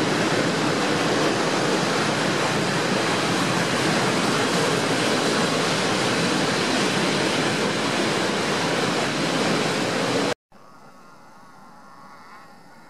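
Freight train of open coal wagons rolling past at speed: a loud, steady rush and rumble of wheels on rail. It stops abruptly about ten seconds in, leaving a much fainter steady noise.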